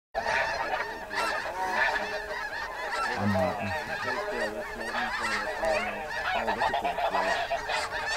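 Many snow goose calls overlapping in a dense, continuous chorus of honks.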